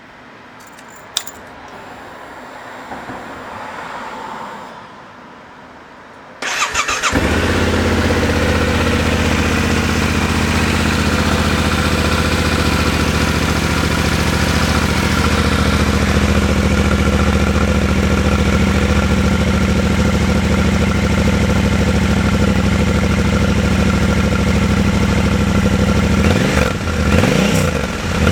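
Yamaha Ténéré 700's 689 cc parallel-twin engine on its stock exhaust silencer. It starts about six seconds in after a quiet lead-in with a click, settles into a steady idle, and is revved briefly a couple of times near the end.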